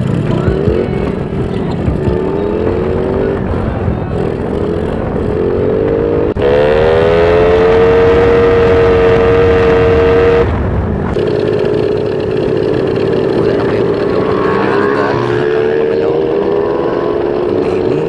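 Small motorcycle engine running while riding, its pitch rising and falling with the throttle, over wind rush. The sound jumps abruptly about six seconds in and again about ten seconds in.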